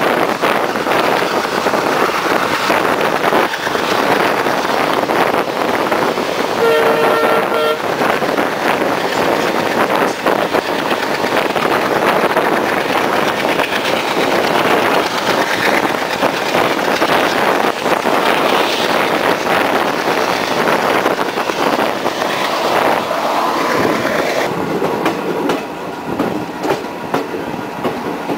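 Steady wheel-on-rail clatter and rumble of a passenger train running close alongside a rake of BTPN bogie tank wagons. A train horn sounds once, for about a second, about seven seconds in.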